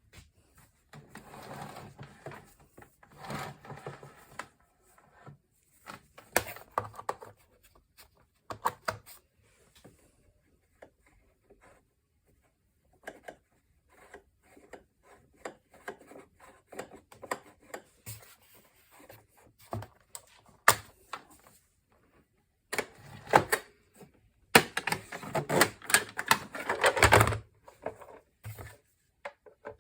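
Parts of a vacuum cleaner being handled: irregular clicks, knocks and rubbing, with the motor not running. The handling is busiest in the last few seconds.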